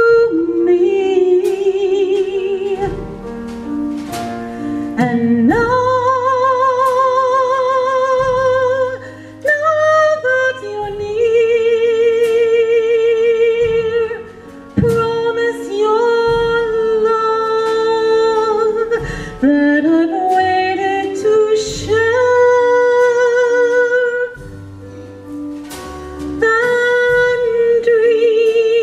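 A woman singing long held notes with vibrato into a microphone, accompanied by piano.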